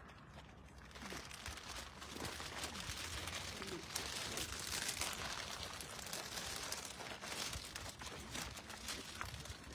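Cellophane wrapping on flower bouquets crinkling close to the microphone. It starts about a second in and is loudest about halfway through.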